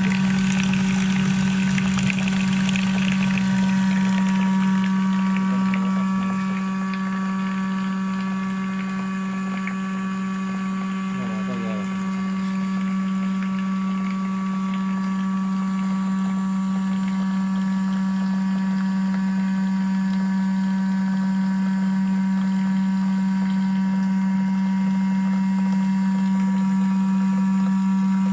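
Electric cream separator running with a steady, even hum, its motor spinning the bowl as it splits milk into cream and skim milk. Milk streams from its spouts into a pail.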